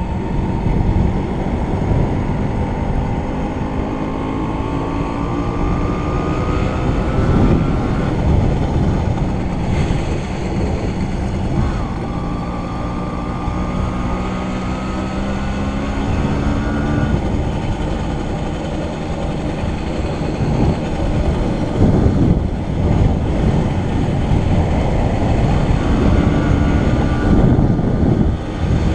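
A vehicle travelling along town streets: a steady rumble of wind and road noise, with a motor's whine that climbs in pitch as it speeds up. The whine climbs three times, breaking off about eight and seventeen seconds in.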